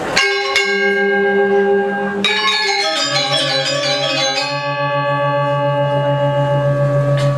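Balinese gamelan (gong semar pegulingan): bronze metallophone keys struck in slow notes and one quick run of notes, each note ringing on with a shimmering, pulsing beat over a low sustained tone.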